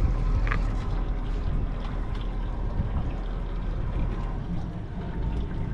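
Boat's engine running at low speed, a steady low rumble.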